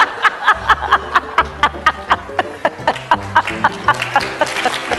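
A rapid cackling laugh, short high 'ha' syllables about five a second, each sliding in pitch, laid over music with low sustained bass notes. Near the end the laughing thins out into a noisy wash like applause.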